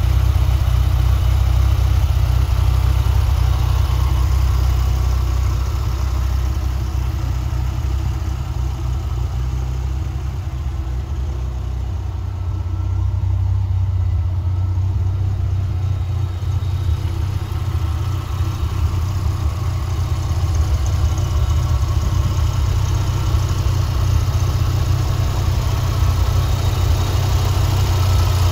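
1994 Dodge Viper RT/10's 8.0-litre V10 idling steadily, heard close at the open engine bay. It grows a little quieter in the middle, then louder again.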